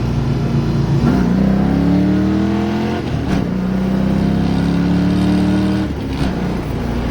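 1989 Ford Mustang's engine pulling hard under acceleration, its pitch climbing through the gears. There are two upshifts, about three and six seconds in, and each drops the pitch before it climbs again.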